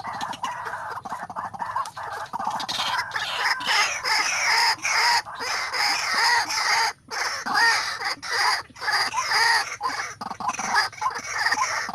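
White-breasted waterhen (ruak-ruak) calling: a loud, continuous run of rapidly repeated harsh calls, with one brief pause about seven seconds in.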